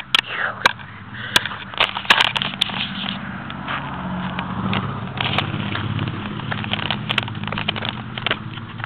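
Camera handling noise: scattered sharp clicks and crackles, then a low steady rumble for several seconds in the middle.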